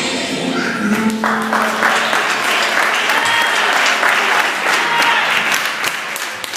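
Audience applauding at the end of a gospel song, with scattered voices among the clapping, while the band's last held note dies away underneath.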